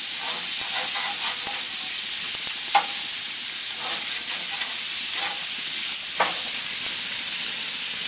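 Chicken thighs sizzling steadily on the hot grates of a gas grill, with several short clinks and scrapes as a metal spatula and fork turn and shift the pieces; the clearest strikes come a little under three seconds in and just after six seconds.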